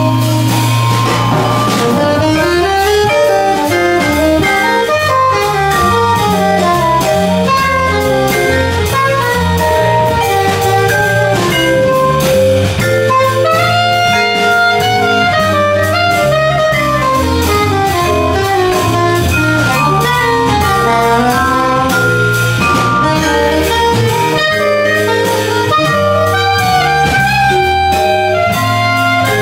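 Live jazz waltz: a soprano saxophone leads the melody over vibraphone, upright-style bass and a drum kit with cymbals.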